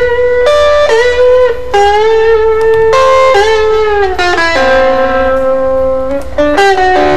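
Recorded electric lead guitar track playing back, played through effects pedals: long held single notes with bends and vibrato, then a quicker run of notes near the end.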